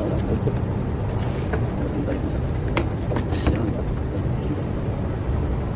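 Scattered light clicks and taps from a Kia Sorento's exterior door handle assembly being handled and fitted onto the door, over a steady low rumble.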